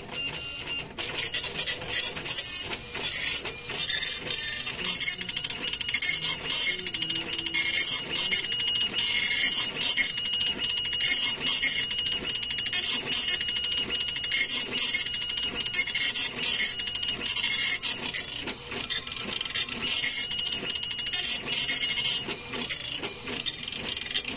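Compuprint 3056 dot matrix printer printing its settings page: the print head rattles in rapid, buzzing passes, one line after another, with short breaks between them.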